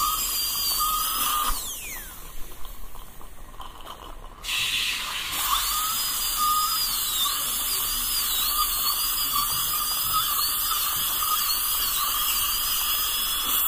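High-pitched whine of a dental drill with a hiss behind it. The pitch glides down about two seconds in, and from about seven seconds on it wavers and dips again and again.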